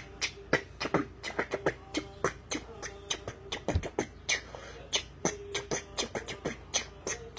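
A person beatboxing a beat with mouth clicks and pops, about four a second, with a steady hummed note in some stretches, as a homemade theme tune.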